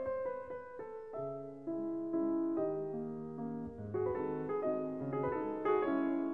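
Background piano music: a slow succession of single notes and chords, each struck and then fading.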